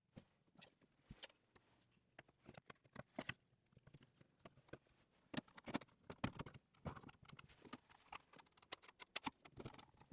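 Faint, irregular light clicks and taps of small wooden box parts being handled and set down, sparse at first and busier from about five seconds in.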